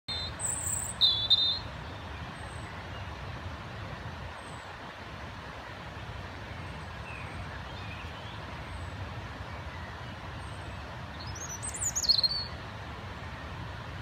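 European robin singing its territorial song: a quick phrase of high, thin, warbling notes at the start and another near the end, with faint notes between. A steady low rumble runs underneath.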